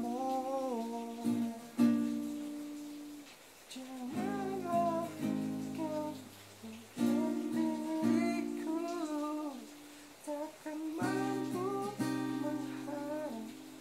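Acoustic guitar strummed in sustained chords, with a voice singing a wavering melody over it in phrases broken by short pauses.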